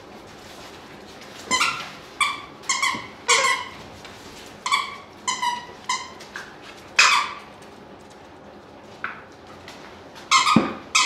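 Six-week-old puppies at play, giving a string of short, high-pitched squeaks, a dozen or so in bunches, loudest about seven seconds in.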